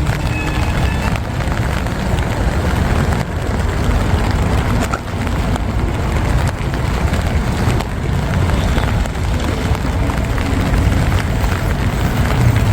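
Steady rain hissing on wet cobblestones, over a continuous low rumble of city traffic.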